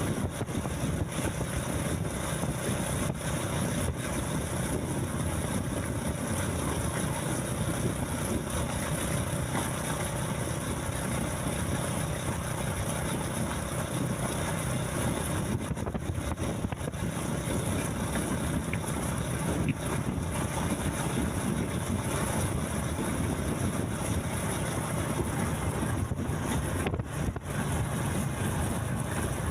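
Vehicle engine running steadily, with a low hum and road noise.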